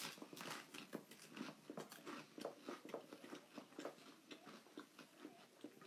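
Faint crisp crunching of rice cakes being bitten and chewed: a quick, irregular run of small crunches.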